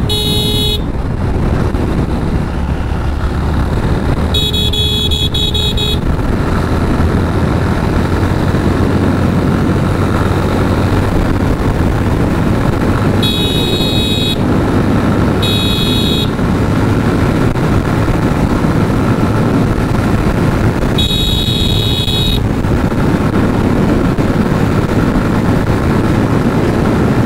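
Steady engine, road and wind noise from riding a motorcycle on a highway, broken by a high vehicle horn blowing in five short blasts, the longest lasting under two seconds.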